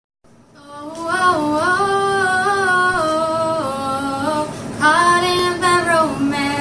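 A woman's voice singing a melody without accompaniment, holding notes that step up and down. It comes in two phrases with a short break about four and a half seconds in.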